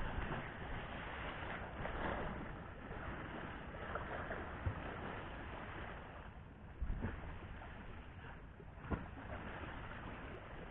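Sea waves washing around a rocky breakwater with wind on the microphone, a steady rushing noise broken by several sharp knocks, one at the start, one near the middle and two later on.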